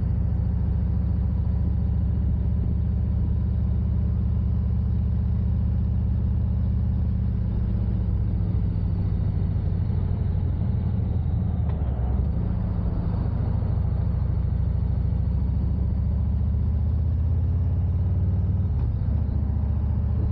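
Motorcycle engine running while riding along at a steady speed, with wind rushing over the microphone; the engine note shifts slightly a couple of times.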